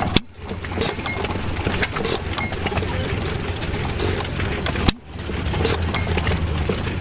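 Antique gas engine running, with a steady low hum and a dense run of clicks and knocks. The sound drops out briefly twice, right at the start and about five seconds in.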